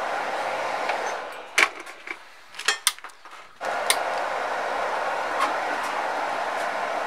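Steady rushing air from a hot-air rework station's blower. It drops away for about two seconds in the middle, during which a few light clicks and taps sound, then comes back.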